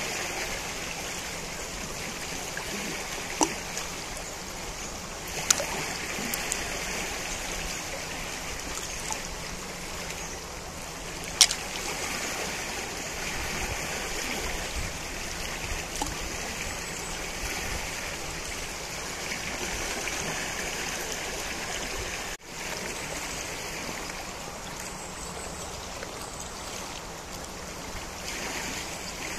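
The Najerilla river flowing: a steady rush of water, with a few short sharp clicks or splashes over it, the sharpest about a third of the way through. The sound dips for an instant about three-quarters of the way through.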